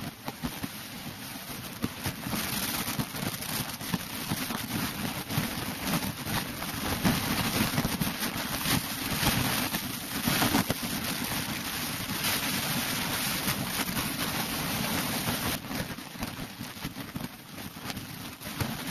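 Mountain torrent rushing and splashing over rock, with wind buffeting the microphone.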